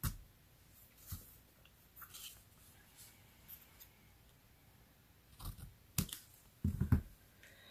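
Small scissors snipping the end of a sheer ribbon: a few quiet, separate snips and clicks, with a cluster of them near the end.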